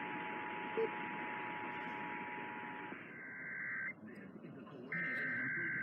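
Emergency Alert System two-tone attention signal received on AM radio, a steady dual tone over static hiss, cutting off about three seconds in, with a short blip about a second in. It gives way to the buzzing digital data bursts of a SAME header: one short burst, about a second of static, then a longer burst.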